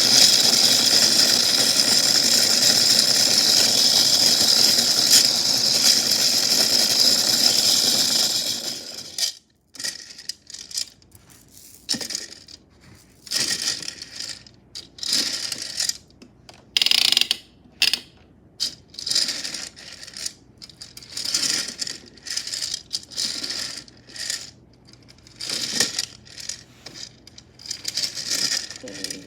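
Toy washing machine running with metal chains tumbling and rattling in its drum; the steady run cuts off suddenly about nine seconds in, after which the chains give irregular short clinks and rattles.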